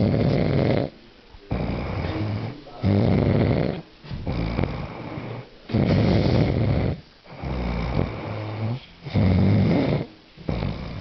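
Snoring in a steady rhythm: a loud snore about every three seconds, four in all, each followed by a quieter breath out.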